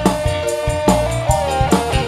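Live dangdut koplo band playing an instrumental passage: an electric guitar carries the melody with sliding, held notes over a steady drum beat and bass.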